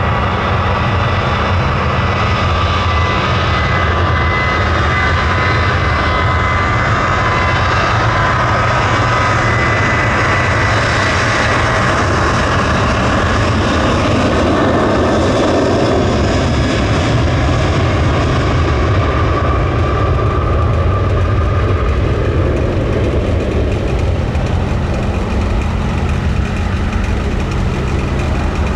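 Jet airliner engines running on or near the runway. A high turbine whine sits over a steady low rumble, and the whine fades out about halfway through while the rumble carries on.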